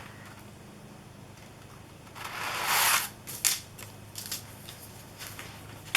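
Plastic stencil sheets being handled: one longer swish about two seconds in, then a few short crinkles.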